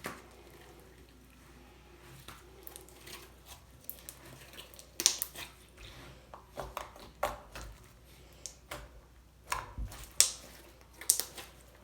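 Slime softened with lotion being squished and stretched by hand: irregular sharp pops and clicks, with quieter stretches between.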